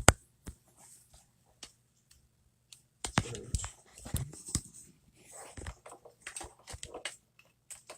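Irregular sharp clicks and taps, like keys or small objects being handled at a desk, with brief rustling; they stop for about two seconds early on, then pick up again.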